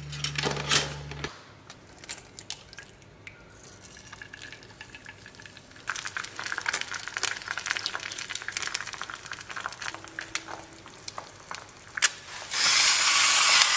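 English muffin halves pushed into a pop-up toaster with a few clicks and a brief low hum, then egg whites frying in a nonstick skillet. The frying is a crackling sizzle from about six seconds in and becomes a loud, steady sizzle near the end.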